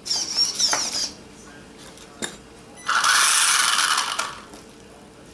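Electric motor and drivetrain of an Axial SCX10 RC rock crawler whirring as its wheels spin for about a second and a half, the loudest sound. High, gliding squeaks in the first second.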